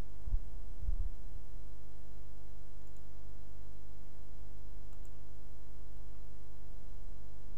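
Steady low electrical hum on the recording, with no speech. Two soft low thumps come in the first second, about half a second apart.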